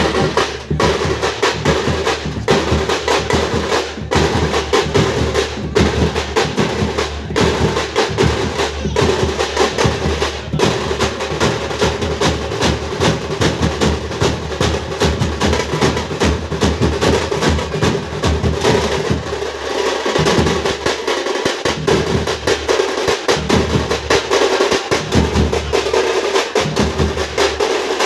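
Folk drum troupe playing a fast, dense drumming rhythm, with rapid strokes packed closely together throughout.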